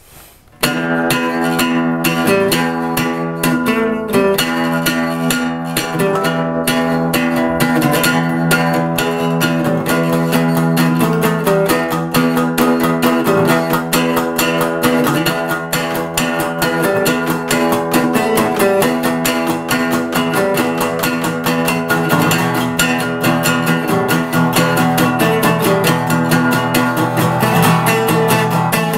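Acoustic guitar and resonator guitar playing together, a strummed instrumental that starts about half a second in and keeps a steady, busy rhythm.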